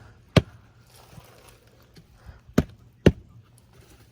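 A vacuum filter being tapped to knock loose packed fiberglass sanding dust that is choking the vacuum's suction: three sharp knocks.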